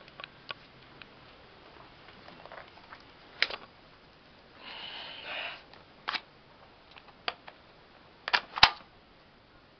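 Scattered sharp clicks and knocks of handling, the loudest pair near the end, with a short breathy rustle about five seconds in.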